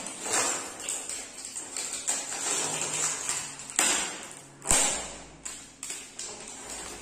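Plastic packaging crackling as it is pulled off the burners of a new glass-top gas stove, with two sharp taps of parts against the stove about four and five seconds in.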